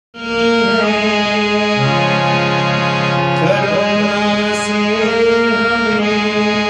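Instrumental music opening a song: sustained chords that shift to new notes about every two seconds.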